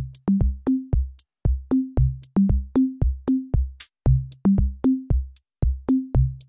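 Electronic background music that starts suddenly: a drum-machine beat of short, punchy bass notes in a repeating pattern that steps up in pitch, about three or four notes a second.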